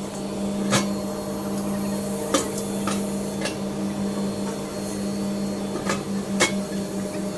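Tube mill production line running: a steady machine hum with several sharp knocks and clicks scattered through it. The hum begins to pulse in the last second and a half.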